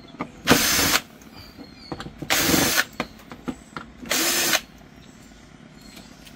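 Electric drill/driver backing screws out of an LED TV's rear cover in three short runs of about half a second each, with small clicks between them.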